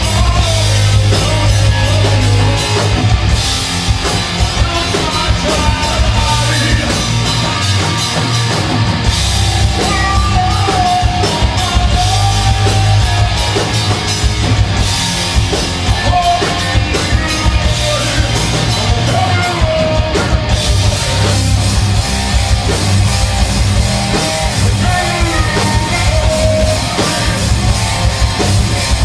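Heavy metal band playing live: distorted electric guitar and a drum kit, with a male singer.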